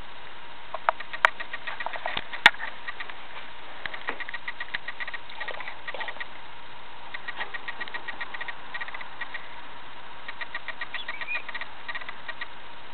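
Cockatiel chattering in repeated runs of rapid, soft ticking chirps, with a few sharp clicks between about one and two and a half seconds in.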